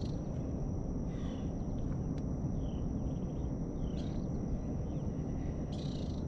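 Outdoor riverside ambience: a steady high-pitched insect drone, a few short falling bird chirps, and a constant low rumble underneath.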